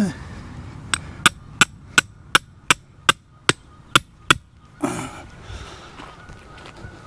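A hand hammer driving a tent stake into the ground: about ten sharp, ringing strikes at roughly three a second, followed by a short grunt or breath.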